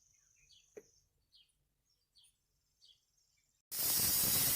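Faint bird chirps with a thin steady high whine and a single click about a second in. Near the end a loud, harsh, steady mechanical noise cuts in abruptly and is by far the loudest sound.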